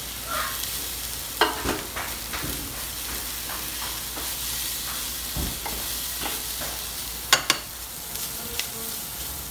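Diced pork and vegetables sizzling in hot oil in a pot as tongs stir them: a steady frying hiss, with sharp clicks of the tongs against the pot about a second and a half in and a quick pair of louder ones about two seconds before the end.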